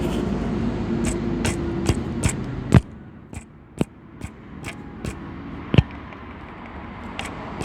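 Water pump with a worn, loose bearing, worked close to the microphone. It gives a series of sharp dry clicks, about two or three a second, over a steady hum that drops away about three seconds in. The bearing is loose and chiando (squealing): the worn pump bearing behind the start-up noise.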